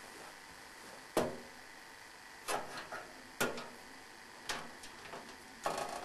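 Sharp clicks and clacks of a motherboard being set into a sheet-metal PC case, about five separate knocks with short gaps between, the first the loudest.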